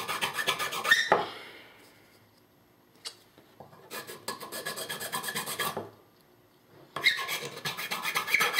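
Large flat hand file rasping in quick, even back-and-forth strokes across an airsoft gun part, smoothing a cut edge flat. The filing stops about a second in, resumes around four seconds for a couple of seconds, pauses, and starts again near the end.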